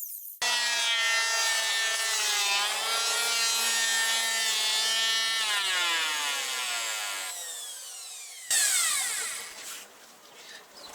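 Electric hand planer running as it planes wooden slats. Its motor pitch sags and then winds down about six seconds in. A second short run starts near the end and dies away with falling pitch.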